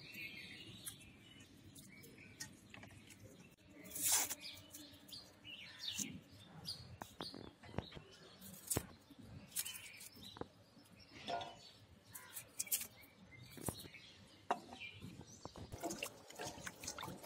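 Scattered clicks and knocks of hands, a knife and ingredients against a stainless steel bowl, with light splashing near the end as garlic cloves are washed by hand in water. Birds chirp in the background.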